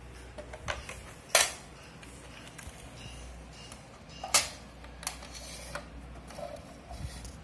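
A white plastic CCTV DVR box being handled and set down on a stone floor: two sharp knocks about three seconds apart, with lighter clicks and taps between them.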